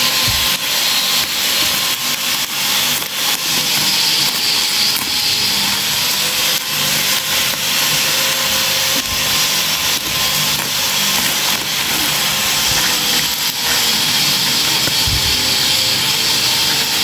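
Plastic bags rustling and crinkling close up: a thin green plastic carrier bag and a black plastic courier mailer being handled and pulled open, with a dense run of small crackles throughout.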